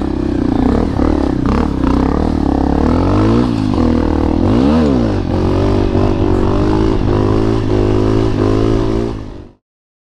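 Honda CRF250L dirt bike's single-cylinder four-stroke engine under way on a dirt trail, revving up and down. Its pitch rises and falls quickly about three to five seconds in, then holds steady before fading out near the end.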